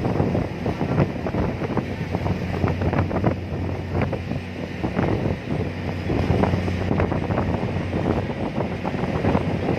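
Strong wind buffeting the microphone in uneven gusts, over the steady low hum of the ferry's engine.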